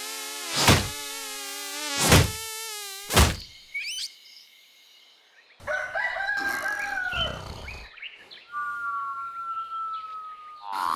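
Cartoon sound effects: a buzzing insect drone with three loud whacks in the first few seconds, then a rooster crowing about halfway through, followed by a long, steady whistle-like note.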